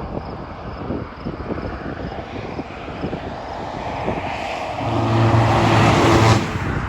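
Wind buffeting the microphone, with a vehicle passing close by: its tyre noise and a low engine hum swell over the last few seconds, then cut off abruptly.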